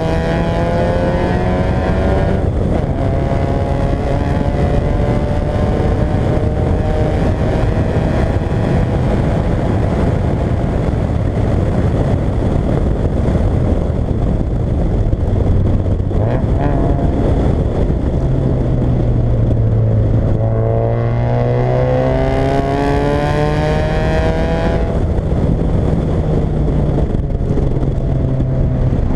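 Fiat Coupé 1.8 16v four-cylinder engine under hard acceleration, its pitch climbing through each gear and dropping at gear changes a couple of seconds in and twice in the last third.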